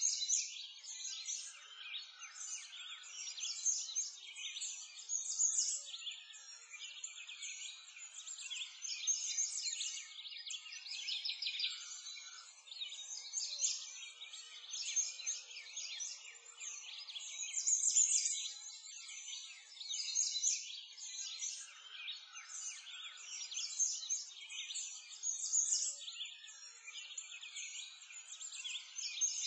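Dense chorus of small birds chirping and twittering, all high-pitched, with no low sounds beneath it.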